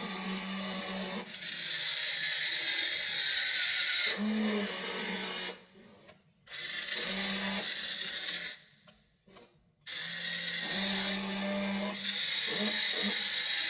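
Small electric motors and plastic gearboxes of a WLtoys RC excavator whirring as its arm and tracks work, the hum changing pitch as different motors switch on and off, and stopping twice briefly.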